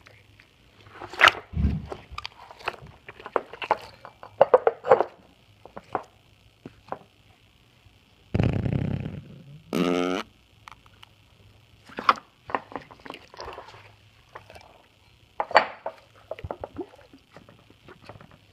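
Slime being squeezed and pressed by hand, giving irregular wet squelches and little pops. About eight seconds in comes a longer, louder low rush of trapped air, followed by a short, pitched, wavering fart-like squeak.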